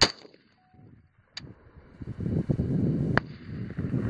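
AR-15 rifle shots: a loud one right at the start and another, quieter one about three seconds in, with a faint sharp crack between them.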